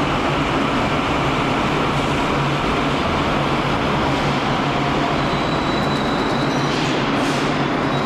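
Dalian Metro Line 12 train pulling into a station platform and slowing to a stop: a steady rumble of wheels and running gear. A thin high tone comes in about five seconds in and fades a second or so later.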